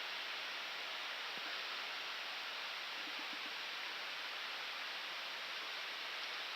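Low, steady rushing hiss of an Airbus A319 cockpit in cruise flight: airflow noise and air conditioning.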